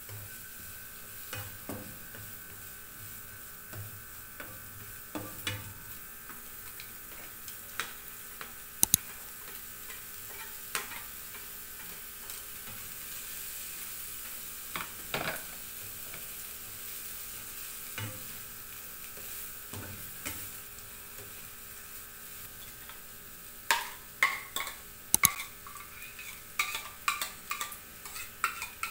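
Onions, green chili and fried tofu stir-frying in oil in a nonstick wok: a steady sizzle with scattered knocks and scrapes of a spatula against the pan. Near the end comes a quick run of sharp clicks.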